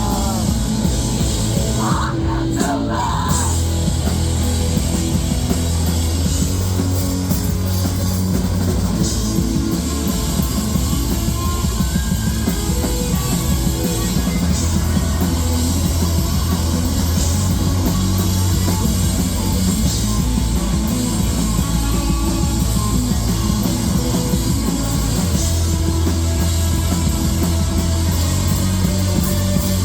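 Live rock band playing loudly, with a drum kit, bass and electric guitar.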